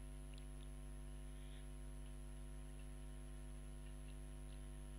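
Steady electrical mains hum in the recording chain, with a few faint, irregularly spaced computer-keyboard clicks as text is typed.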